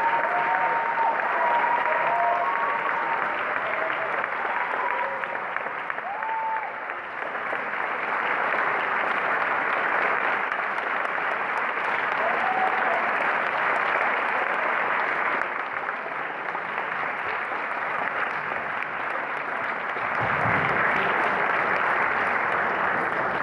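Large audience applauding steadily without a break, a sustained ovation.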